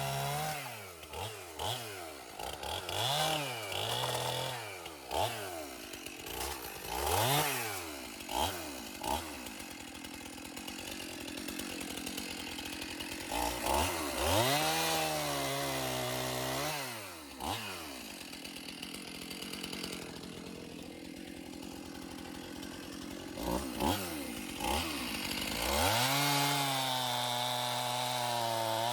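Stihl two-stroke chainsaw idling, revving up and dropping back again and again, with longer stretches held at high revs as it cuts wood with a freshly sharpened chain; it settles back to idle near the end.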